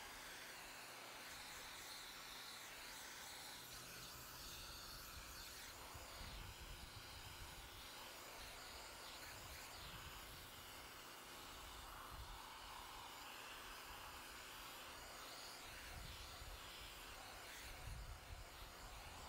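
Faint, steady hiss of water spray from a Portland 1750 PSI electric pressure washer, with a few low rumbles on the microphone.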